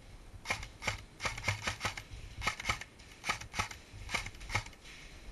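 Airsoft gun firing single shots in quick irregular groups, about fourteen sharp cracks.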